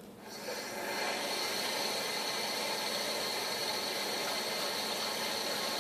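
Sink tap running, water pouring into a container of ramen noodles; a steady rush that builds over the first second and then holds level.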